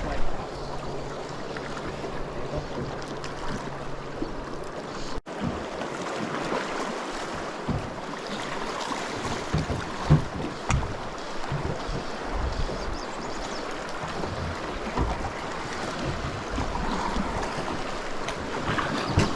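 Flowing river water around a drift boat, with wind gusting on the microphone and scattered low knocks. A low steady hum is present for the first five seconds, and all sound drops out briefly about five seconds in.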